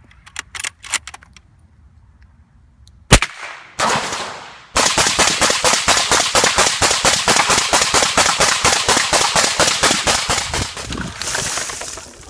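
Suppressed gunfire: a single sharp shot, then a long run of rapid, evenly spaced shots at about eight a second that stops near the end.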